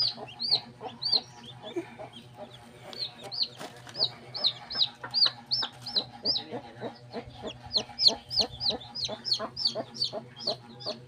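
Native chicken chicks peeping: a run of short, high, arched peeps, about two or three a second, pausing briefly about two seconds in and again near seven seconds, fastest near the end.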